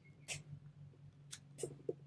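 Lock pick working the pins of a Syneco 40mm steel laminated padlock: four small, sharp metallic clicks, two of them close together near the end, over a faint low hum.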